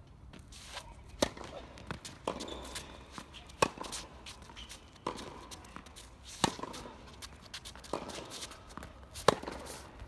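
Tennis rally: rackets striking the ball about seven times, one hit roughly every second and a half, alternating between louder close hits and fainter ones from across the court, with shoe scuffs and footsteps between.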